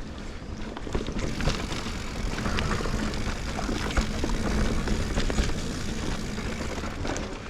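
Sonder Evol GX mountain bike riding over a dirt trail: tyres rolling with a steady low rumble and frequent clicks and rattles from the bike. It gets louder about a second in.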